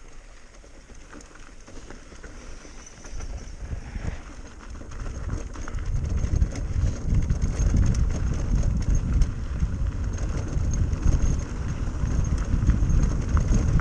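Wind rushing over the microphone and tyres rumbling on the trail as a bike gathers speed downhill. It starts fairly quiet and grows loud about five seconds in.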